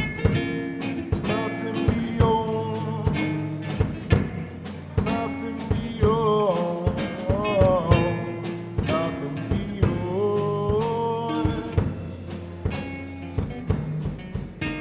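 Rock band playing an instrumental passage: a drum kit beats steadily under bass and chords, while a lead melody slides and bends in pitch.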